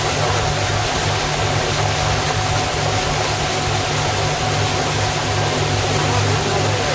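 An abra ferry's engine running steadily under way: a constant low drone with a thin steady hum above it, over an even rush of water and wind.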